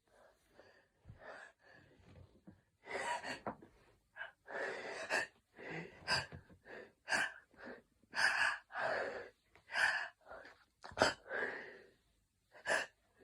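A person in a hay fever sneezing fit: a string of gasping in-breaths, each building up to a sharp sneeze, repeated many times over.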